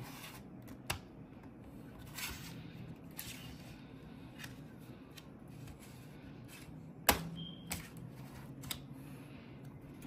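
Bottom cover of a Razer Blade 15 laptop being pried loose by hand: scattered clicks and short scrapes as its clips let go, with one sharp, loud snap about seven seconds in.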